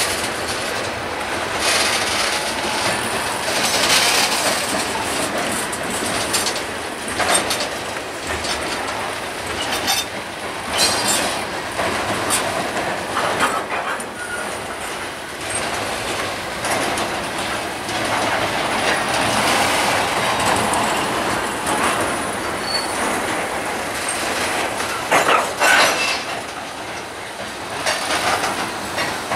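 Freight train's tank cars and covered hoppers rolling past close by, steel wheels clacking irregularly over the rail joints with a steady rumble, and a faint high wheel squeal at times. A louder pair of knocks comes near the end.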